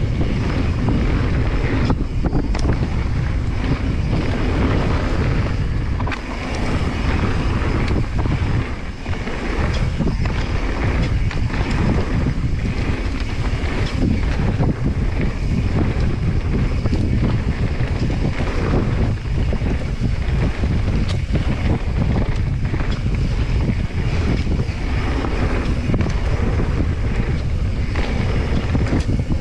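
Wind buffeting an action camera's microphone at speed on a mountain bike descent, over tyre rumble on a loose dirt-and-gravel trail and constant knocks and rattles from the Specialized Stumpjumper Evo's chain and suspension over bumps. It eases briefly around six and nine seconds in.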